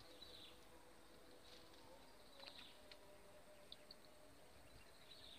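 Near silence: faint open-air ambience with a few faint, short, high chirps.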